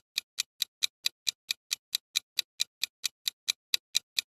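Countdown-timer sound effect: fast, even clock ticks, about four to five a second.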